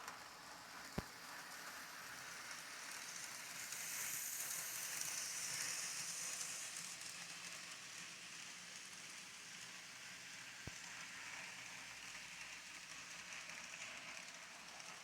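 Faint, steady background hiss that swells for a few seconds about four seconds in, with two faint single clicks, one about a second in and one near the end.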